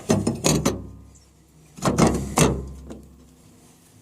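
Knocks and rattles of heavy metal parts being handled, in two bursts: one at the start and one about two seconds in, each fading into a low rumble.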